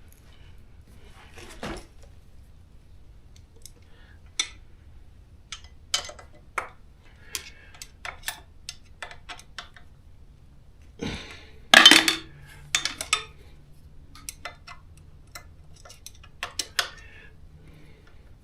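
Metal hand tools and small bolts and nuts clinking and clattering as they are handled and fitted during scooter assembly: scattered sharp clicks, with the loudest clatter about two-thirds of the way through.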